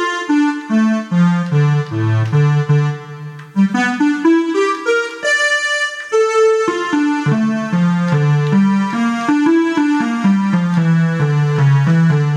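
Odisei Travel Sax 2 digital wind instrument playing a melody on its synthesizer lead voice: a single bright, buzzy line of notes stepping up and down a few times a second.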